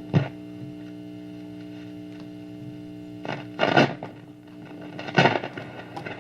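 Vintage Zenith tube radio switched on, giving a steady hum, with three short bursts of static: one right at the start, one a little over three seconds in and one about five seconds in.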